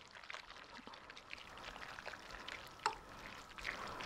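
A spoon stirring egg and milk into macaroni in a glass baking dish: faint wet squishing with light clicks of metal against glass, one sharper click nearly three seconds in.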